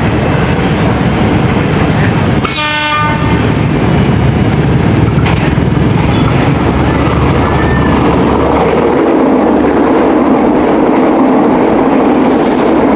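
A train passing close by, a loud steady rumble and rattle of the cars on the rails. About two and a half seconds in comes a short blast of its horn.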